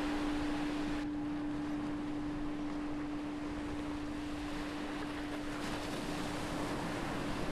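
The long ringing tail of a meditation bell, one steady low tone, held over the steady wash of ocean waves.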